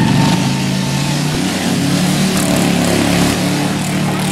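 Racing riding-lawnmower engines running loudly, a steady low engine note with a high thin tone over it in the first second.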